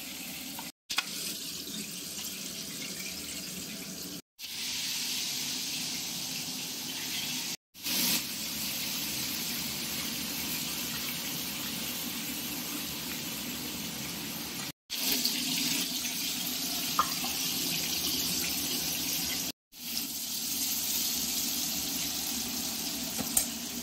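Potatoes and stingray pieces frying in hot oil in a kadai: a steady sizzle, broken by five brief dropouts.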